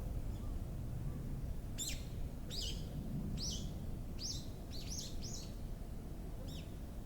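A bird calling in a quick series of about eight short, sharp, downward-sweeping chirps, starting about two seconds in, over a steady low rumble.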